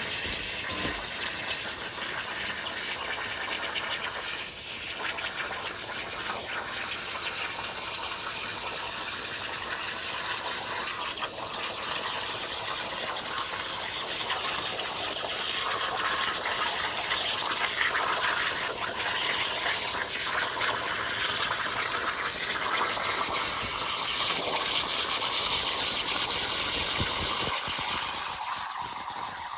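CNC plasma torch cutting steel plate, a steady hiss of the arc and cutting air.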